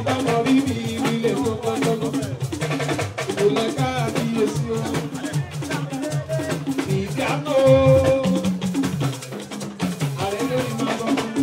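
Dance music with a steady drum and percussion beat.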